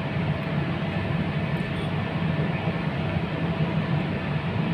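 Steady low mechanical hum with a faint constant tone above it, like background machinery running.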